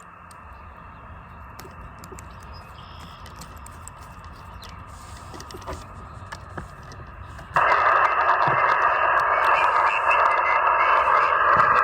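A few faint handling clicks, then about two-thirds of the way in a portable Elecraft KX2 ham radio transceiver's receiver audio comes on suddenly: a loud, steady hiss of HF band noise and static from its speaker.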